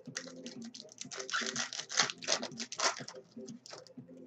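Football trading cards and a foil pack wrapper being handled: a quick, dense run of clicks and crinkles, busiest in the middle.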